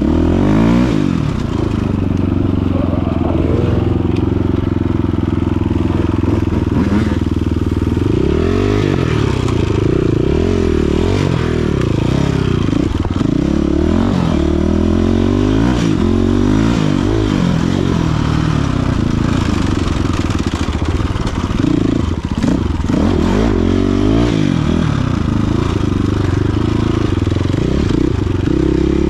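Dirt bike engine revving hard, its pitch rising and falling over and over as it is ridden.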